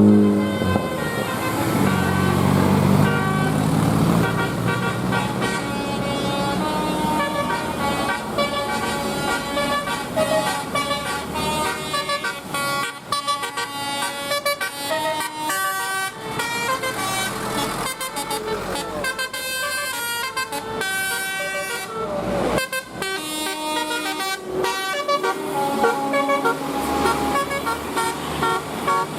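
Telolet bus horn playing a melody: a multi-tone horn sounding a tune of stepped notes, with a run of quick short notes partway through.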